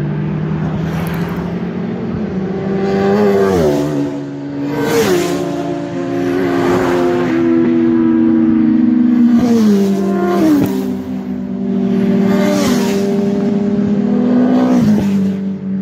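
Superbike engine accelerating hard through the gears: its pitch climbs steadily, then drops sharply at each upshift, several times over.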